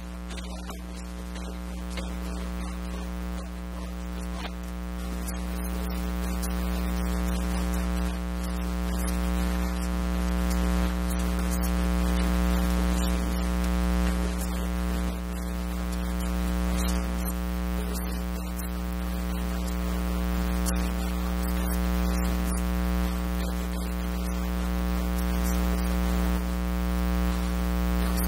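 Steady electrical mains hum with a buzzy stack of overtones and a hiss on top, swelling slowly over the first several seconds and then holding, with faint crackles scattered through it.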